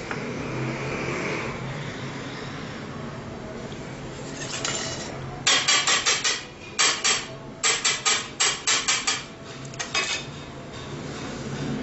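Knife chopping candied fruit finely on a cutting board: quick runs of sharp knocks starting a little before halfway and stopping a couple of seconds before the end.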